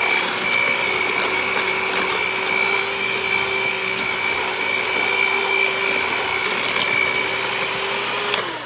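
Electric hand mixer running steadily at one speed, its beaters working eggs into creamed butter and sugar for pound cake batter. Near the end it is switched off, and the whine drops in pitch as the motor winds down.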